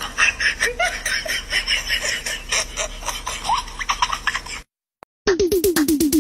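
Giggling laughter, a quick run of short laughs that stops abruptly about four and a half seconds in. After a brief silence, electronic music with a fast pulsing beat and notes stepping down in pitch starts near the end.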